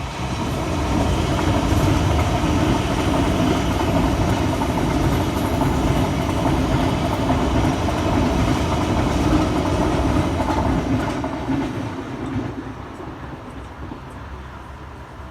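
Loud, steady rumble of a passing train, dying away from about 11 seconds in.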